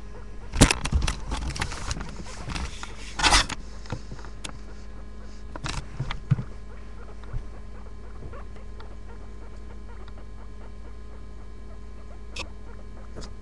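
Rustling and crackling from a pet guinea pig being handled close to the microphone. It is dense for the first three seconds or so, then thins to scattered soft clicks and knocks over a steady low hum.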